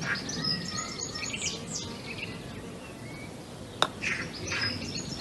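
High chirping, like small birds, in two runs: one from just after the start to about two seconds in, and another about four seconds in. A single sharp click comes between them.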